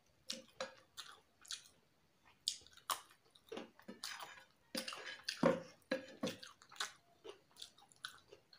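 Close-miked chewing of chicken biryani, with wet mouth clicks and lip smacks coming a few each second at irregular spacing.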